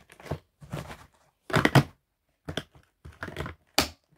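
Plastic toys and a clear plastic packaging tray being handled: a series of short rustles, clicks and knocks, the loudest about a second and a half in.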